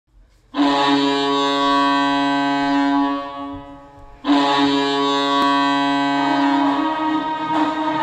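University of New Hampshire Wildcats' goal horn sounding two long, loud blasts. The first starts about half a second in and fades out by about four seconds; the second starts sharply just after and holds.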